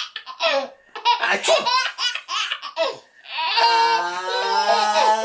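A baby laughing in quick breathy bursts for about three seconds. Then, about three and a half seconds in, a person starts a long drawn-out held "ahhh", the wind-up of a fake sneeze.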